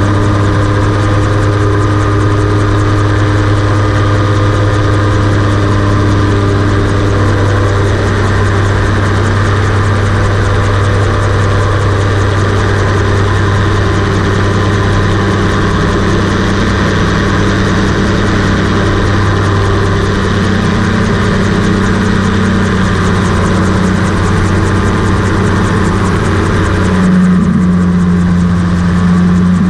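Rotax 582 two-stroke twin engine of a gyroplane running steadily at cruise power in flight, heard from on board, driving the pusher propeller. Near the end one tone of the engine note grows stronger and it gets slightly louder.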